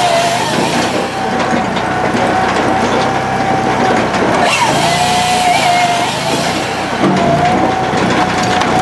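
Firewood processor running: a steady engine drone under a high whine that sags in pitch briefly twice, with a knock about four and a half seconds in.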